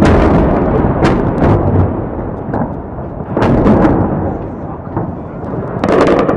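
Explosions from an aerial bombardment: a string of about six heavy blasts, sharp cracks over a continuous deep rumble, one right at the start, a cluster about 3.5 s in and another near the end.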